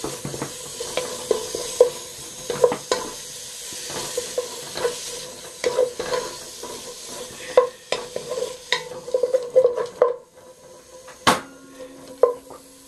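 Beef sizzling as it is stir-fried in a pot of sesame oil and red pepper, with a spoon or spatula scraping and clicking against the pot. The sizzle fades near the end, and a single sharp knock follows.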